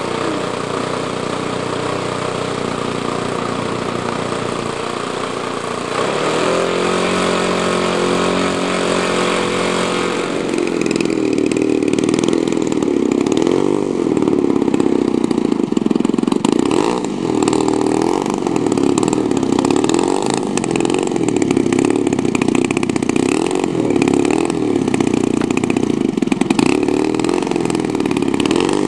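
50cc two-stroke gasoline engine of a large-scale radio-controlled CAP 232 model plane, spinning a 20x8 propeller. It runs steadily at first, then louder from about ten seconds in, its pitch rising and falling repeatedly as the plane taxis.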